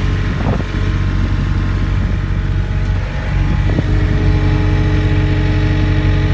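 New Holland skid steer's engine running steadily. A little before four seconds in there is a short knock and the engine note changes, running slightly louder with an added steady tone.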